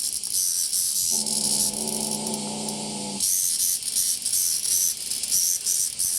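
Cicadas buzzing in a high, pulsing drone. About a second in, a cat gives a low, steady growl for about two seconds, warning others off the cicada it has caught.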